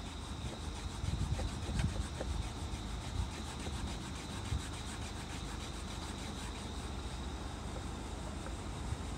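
A pencil eraser rubbed quickly back and forth over textured plastic car trim, a rough scrubbing that lifts off dried car polish. A few low knocks in the first two seconds, over a steady low rumble.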